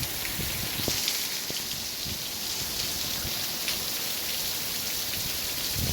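Steady heavy rain falling, with many drops splashing on wet surfaces.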